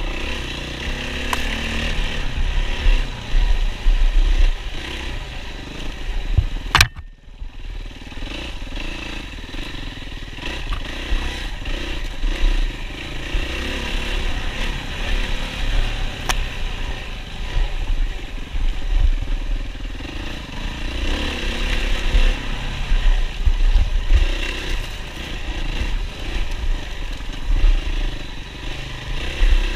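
Yamaha WR450F's single-cylinder four-stroke engine running hard under a rider in a cross-country race, its pitch rising and falling as the throttle opens and closes over the terrain. A single sharp knock about seven seconds in, followed by a moment where the engine drops off.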